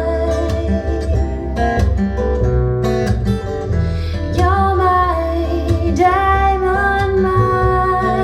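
A song with a sung vocal line over plucked acoustic guitar and bass, played back through Audio Note AN-J/LX loudspeakers driven by an Audio Note valve amplifier and heard in the room.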